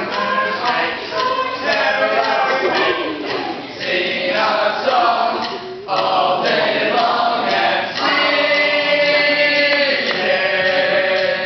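A group of voices singing together, with a brief break about six seconds in and longer held notes near the end.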